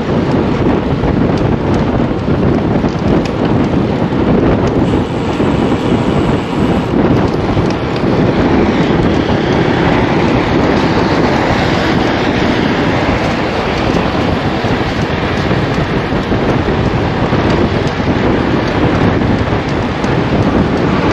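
Wind rushing over the microphone of a handlebar-mounted camera on a road bike at riding speed: a loud, steady rushing with a low rumble beneath it from the tyres on the road.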